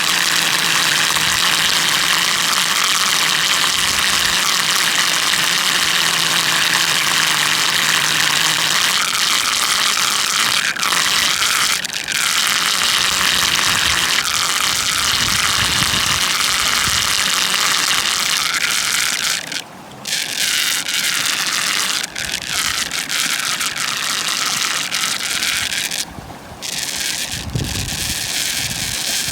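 Water gushing loudly through a dam, where a whirlpool funnel draws water down, with a low steady hum that stops about eight seconds in.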